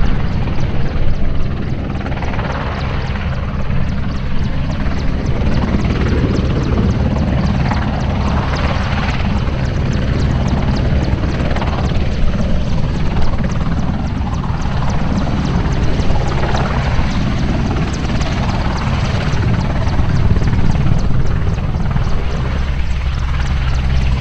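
Merlin military helicopter hovering low, its three turbine engines and rotor running loud and steady with a deep, even rotor thrum and fast blade chop.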